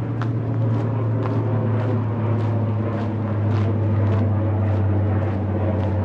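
A loud, steady, low engine drone that swells slightly toward the middle, with footsteps ticking about twice a second.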